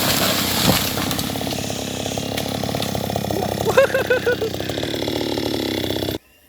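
Two-stroke engine of a New West 628 chainsaw running steadily, off the cut, with a brief warbling pitched sound over it about halfway through. The engine sound cuts off abruptly near the end.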